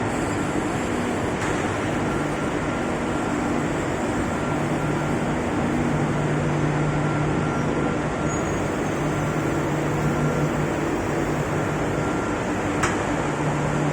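Machinery of a waste-oil distillation plant running: a steady mechanical drone with several hum tones that fade in and out. There is one sharp click near the end.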